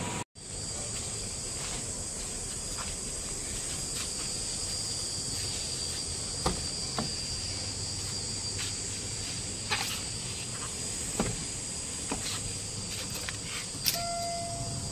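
Crickets chirring steadily, with a few short clicks. Near the end a car's warning chime starts beeping as the key goes into the ignition.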